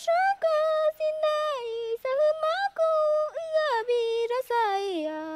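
A woman singing solo and unaccompanied in a high voice, holding notes and sliding down between them, with short breaks between phrases.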